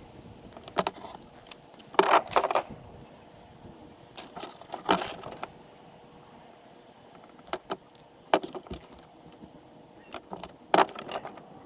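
Small metal machine screws clinking and clicking in the fingers as they are handled and pushed through the plastic inspection-port ring, in several short bursts of clicks.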